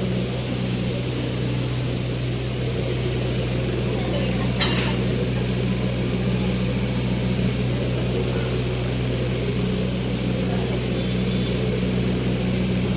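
A steady machine-like hum with an unchanging low drone, under faint murmuring voices, with one brief sharp click about four and a half seconds in.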